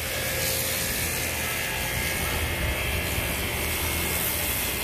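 Steady rushing noise with a low, uneven rumble, typical of wind on the microphone.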